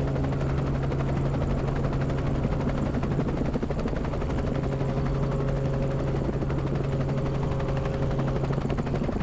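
Helicopter running steadily in flight: a constant hum under a fast, even chop of the rotor blades.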